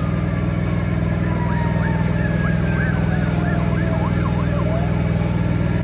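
An emergency-vehicle siren yelping, its pitch swinging up and down two or three times a second for a few seconds in the middle, with a slower tone gliding downward beneath it, over a steady low engine drone.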